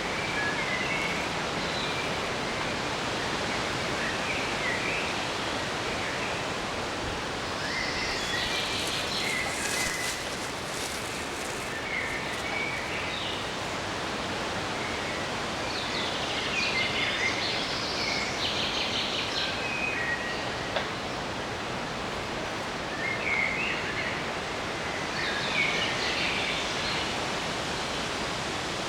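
Forest ambience: birds singing in several short bursts of song over a steady rushing background noise.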